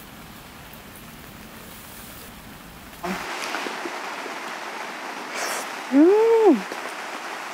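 Steady rain for about three seconds, then the background changes abruptly. Near the end a person gives a short 'mmm' hum, rising then falling in pitch, as of someone savouring a bite of food.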